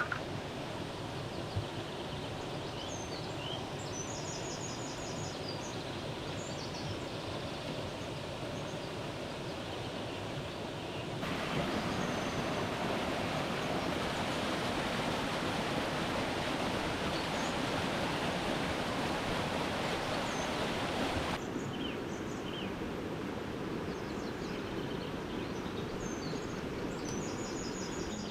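Steady outdoor rushing noise, stepping up abruptly for about ten seconds in the middle, with a few faint high bird chirps near the start and near the end.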